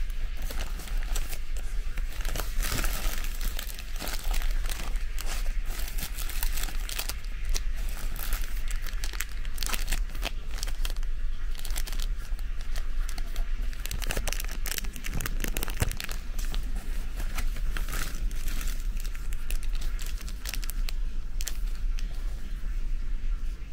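Continuous irregular crinkling and crackling, like plastic or paper being handled, over a steady low hum.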